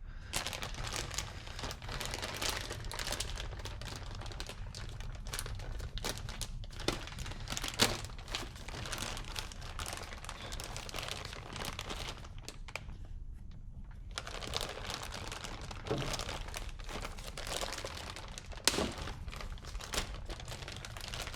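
Plastic packaging crinkling and rustling as the ratchets are handled and unwrapped, with a few sharper knocks and a brief lull partway through.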